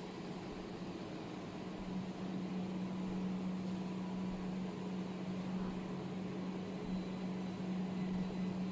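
CW laser welding machine running with a steady low hum over a hiss, a little louder from about two seconds in.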